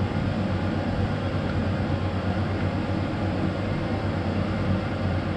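A machine running steadily: an even whir over a constant low hum, unchanging throughout.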